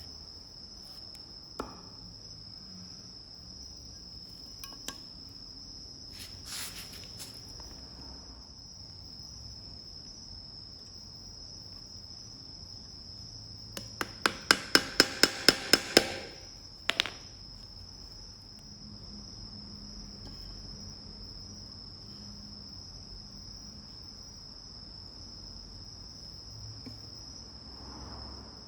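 Insects, likely crickets, trilling in one steady high tone. About halfway through comes a quick run of about ten sharp taps, roughly five a second, followed by a couple more.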